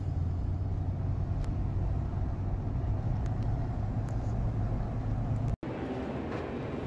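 Steady low rumble of a car in motion, heard from inside the cabin. It cuts out for an instant about five and a half seconds in, and a similar rumble picks up again.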